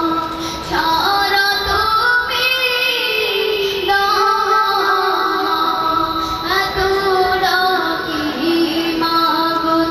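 A boy singing a Bengali Islamic gazal solo into a microphone, in long held notes that slide and ornament between pitches.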